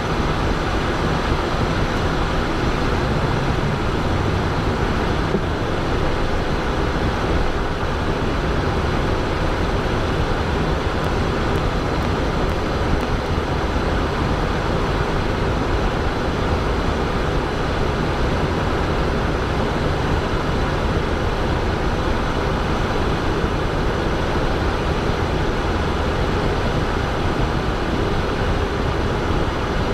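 Steady cockpit noise of a Cessna Citation Bravo business jet in flight: airflow over the cabin and the hum of its twin Pratt & Whitney Canada PW530A turbofan engines, an even noise that does not change.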